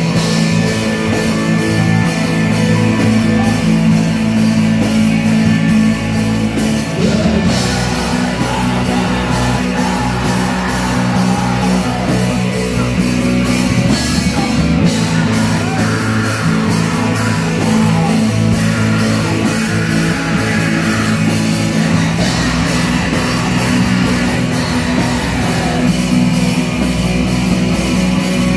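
Heavy metal band playing live: distorted electric guitars, bass guitar and drums, with a vocalist singing into the microphone at times.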